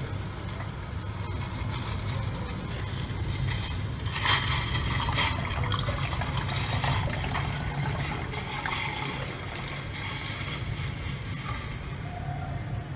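Tea simmering in a steel saucepan on a gas stove while milk is poured into it from a cup, with a short knock about four seconds in.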